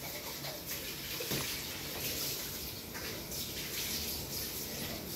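Steady rushing hiss like water running from a tap, with small irregular splashing fluctuations.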